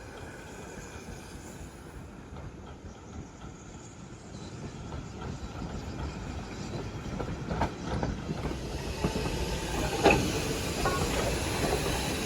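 A steam train running along the line, getting steadily louder over the second half, with a few sharp clanks from the wheels and couplings.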